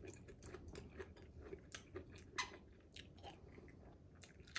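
Someone eating: quiet chewing with many small scattered clicks and crackles.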